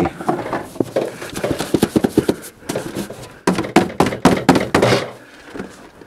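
Sooty stovepipe section scraping and knocking inside a galvanized metal garbage can as creosote is cleaned out of it and rattles down into the can: a dense run of scrapes and knocks that stops about five seconds in.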